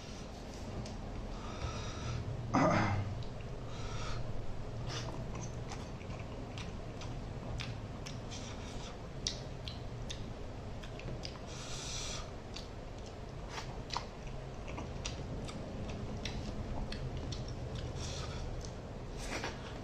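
Close-up eating sounds: chewing and mouth noises, with fingers mixing rice and fish curry on a steel plate giving scattered small clicks and squelches. A short, louder sound falling in pitch comes about two and a half seconds in.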